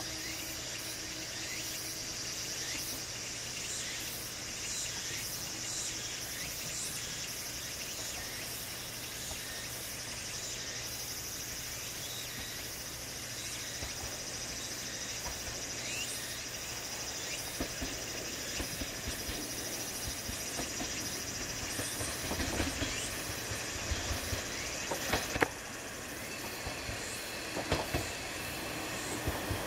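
KiHa 40 diesel railcar approaching slowly. A distant horn note fades out in the first few seconds. Then engine hum and wheel clicks over rail joints and points grow steadily louder as the car nears.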